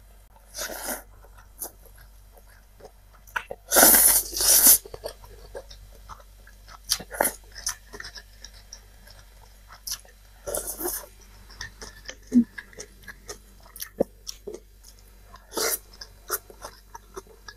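Close-miked chewing of spicy instant cup noodles, with scattered short wet mouth clicks. Louder noisy bursts come near the start, about four seconds in (the loudest, about a second long), and around eleven and sixteen seconds.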